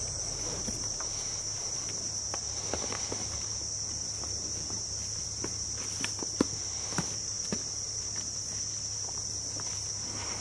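Steady high-pitched insect chorus, with scattered soft clicks and knocks.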